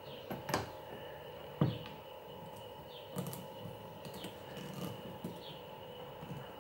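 Small clicks and scrapes of a screwdriver and fingers working a sanding belt into the clamp of a 3D-printed plastic sanding bow, with two sharper clicks about half a second and a second and a half in, over a faint steady high hum.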